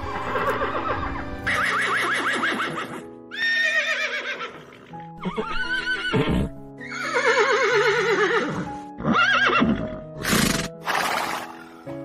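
Horse whinnying again and again, about eight calls one after another, each with a quavering pitch that falls away at the end.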